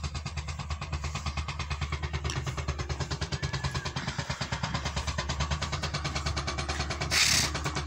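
An engine running steadily with a fast, even pulse, and a short hiss about seven seconds in.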